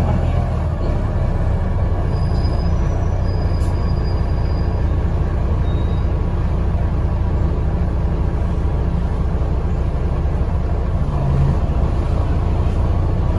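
Double-decker bus in motion, heard from inside on the upper deck: a steady low engine rumble with road and body noise.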